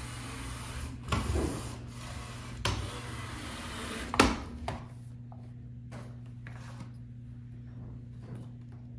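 LEGO SPIKE Prime robot's drive motors whirring and its wheels rubbing as it drives across the competition mat, with plastic knocks as it is handled. A sharp clack about four seconds in is the loudest sound; after it the robot is still and only a low hum remains.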